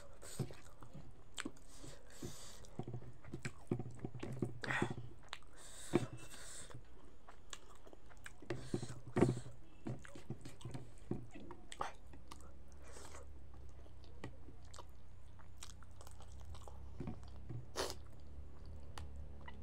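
Close-up eating sounds of a person eating rice by hand: chewing and wet mouth smacks, with scattered short crunchy clicks. A low steady hum comes in about halfway through.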